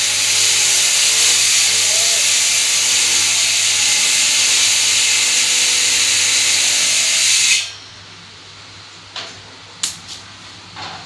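Loud, steady hiss that cuts off suddenly about seven and a half seconds in, followed by a few light clicks.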